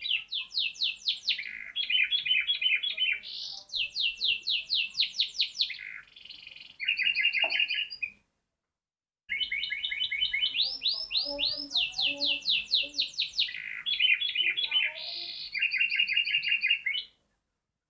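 Domestic canary singing fast trills of rapidly repeated notes, switching between high sweeping rolls and lower choppy phrases; the owner calls the song odd-sounding. The song breaks off for about a second near the middle, then resumes and stops shortly before the end.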